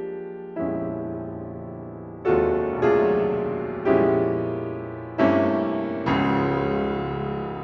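Solo piano playing slow, sparse chords: six chords struck one at a time, each left to ring and fade before the next.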